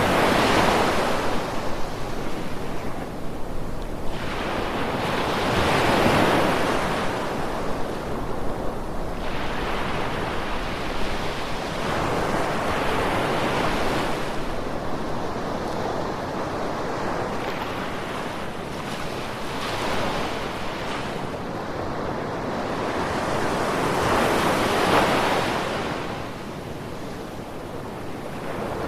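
Ocean waves breaking on a shore: a steady rush of surf that swells and fades about five times, one wave every five to seven seconds.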